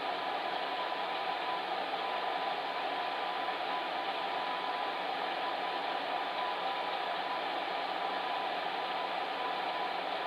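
Fan heater running steadily: an even whooshing rush of blown air with a faint constant hum underneath.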